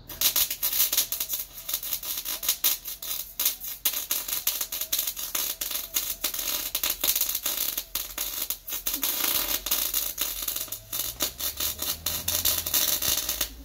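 Electric arc welding on steel: a dense, steady crackle with a few brief breaks, which starts and stops abruptly as the arc is struck and broken.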